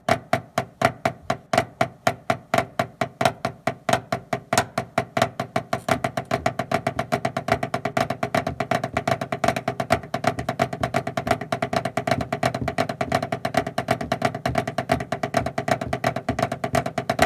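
Drumsticks on a homemade practice pad playing a flam rudiment combination of Swiss Army triplets alternating with a flammed mill, in a continuous run of rapid strokes with a woody ring. The strokes get faster and denser about six seconds in.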